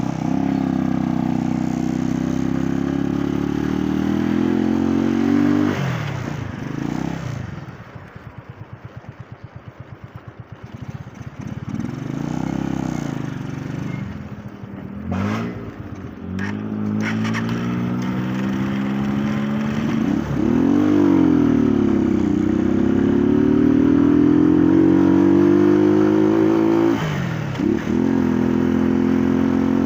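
Motorcycle engine pulling away and accelerating through the gears, its pitch climbing and then dropping at each shift. About a third of the way in it falls back to a quieter, pulsing idle before pulling away again.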